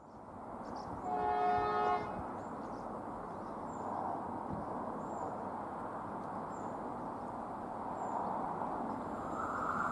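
The horn of an approaching Irish Rail diesel multiple unit sounds once, about a second in, lasting about a second. Under it runs a steady rumble that grows slightly louder toward the end as the train draws nearer.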